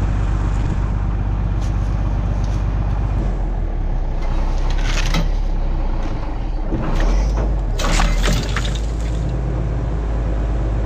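John Deere 7520 tractor's diesel engine running under load as chains pull a Mack truck's leaf spring and trunnion apart, the engine swelling briefly about seven seconds in. Sharp cracking and creaking about five seconds in and again around eight seconds as the spring and trunnion break loose.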